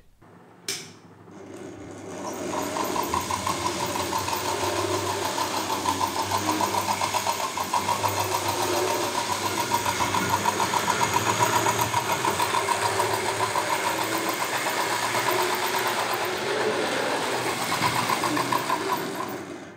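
Hornby R150 B12 model steam locomotive running on track, its tender's simple mechanical chuffer (a tab on a tender wheel flicking a small plastic piece) giving a fast, even, half-realistic chuffing clatter. It builds up about two seconds in as the loco gets going and stops just before the end.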